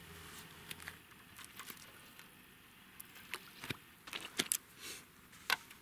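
Handling sounds while a just-caught roach is unhooked and put into a keepnet: a run of sharp, irregular clicks and knocks from tackle and hands, coming thicker after about three seconds.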